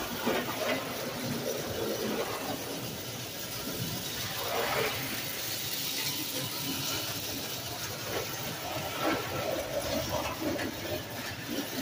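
Lionel toy trains running on three-rail tinplate track, a steady, noisy running sound of wheels and motors.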